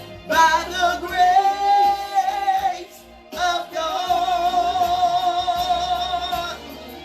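Gospel song: a singer holds two long notes with vibrato over instrumental backing, with a short break between them.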